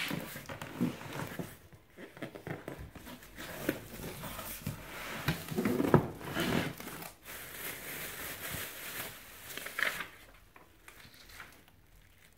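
Cardboard box flaps being pulled open and clear plastic wrapping crinkling as packed parts are handled, in irregular rustles, scrapes and light knocks that die down near the end.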